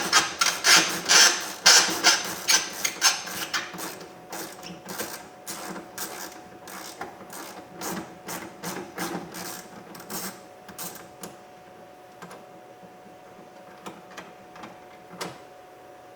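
Hand ratchet with a 10mm socket on an extension, clicking as it backs out the interior door handle's retaining bolt. Rapid clicks thin out about two-thirds of the way through, leaving a few scattered clicks.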